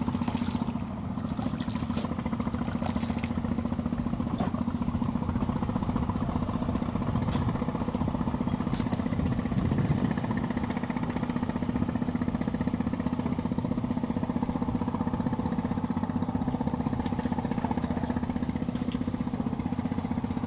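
Kubota DC70 combine harvester's diesel engine running steadily at a constant speed, with a slight swell in level about halfway through.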